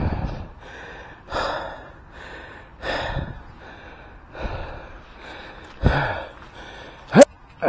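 Mountain biker breathing heavily and out of breath, a loud breath about every second and a half. A short, sharp squeak near the end.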